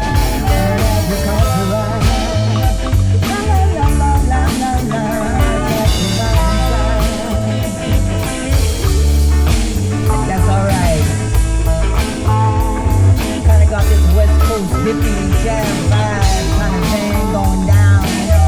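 Instrumental rock music: a lead guitar line that bends in pitch over a heavy bass and drums.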